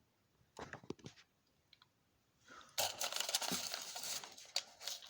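Handling noise: a few light clicks in the first second or so, then from about three seconds in a dense crinkling, tearing rustle.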